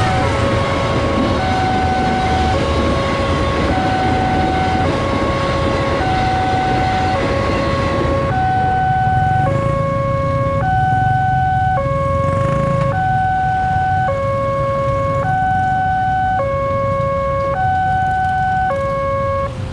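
Railway level-crossing electronic warning alarm sounding, two tones alternating low and high in a steady repeating pattern. For the first eight seconds or so it plays over the loud rushing rumble of a passenger train passing the crossing at speed, which then fades away.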